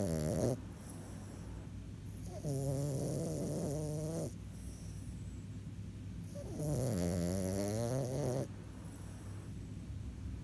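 French bulldog snoring in its sleep: the tail of one snore just as it begins, then two full snores about four seconds apart, each about two seconds long and dipping then rising in pitch, with quieter breathing between.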